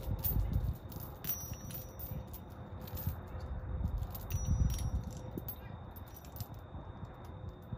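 Light metallic jingling and tinkling: scattered short high clicks and brief ringing notes, over a low uneven rumble and a faint steady high tone.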